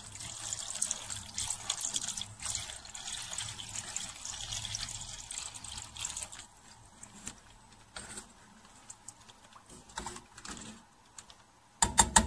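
Milky seafood soup sloshing and splashing in a pot as it is stirred with a silicone spatula while milk is added a little at a time. About six seconds in it quiets to softer stirring with light clicks, and a few sharp knocks come near the end.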